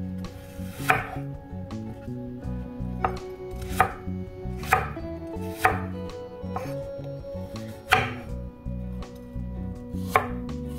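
Chef's knife dicing peeled apple on a wooden cutting board: about seven sharp knocks of the blade through the fruit onto the board, spaced irregularly a second or two apart.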